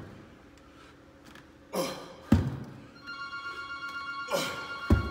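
25 lb hex dumbbells set down hard on a wooden platform between alternating plank rows: two heavy thuds about two and a half seconds apart.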